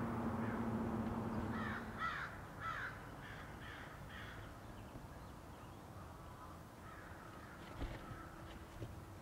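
A crow cawing about six times in quick succession, the caws growing fainter, with a few weaker calls later on. Before the caws, a steady noise with a low hum fades out.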